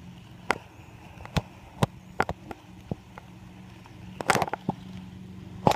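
Green self-balancing hoverboard being ridden over dry grass: a steady low hum with scattered sharp clicks and ticks, a quick cluster of them about four seconds in and a louder knock near the end.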